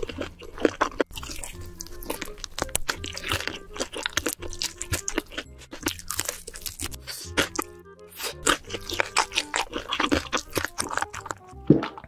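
Close-miked crunching and chewing of sauced fried chicken: many sharp crunchy bites in quick succession. Background music plays steadily underneath.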